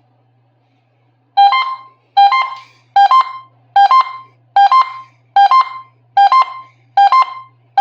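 Electronic two-note alert chime, a lower note then a higher one, repeating about once every 0.8 seconds. It starts about a second and a half in and sounds eight times: the attention signal that opens an AMBER Alert broadcast.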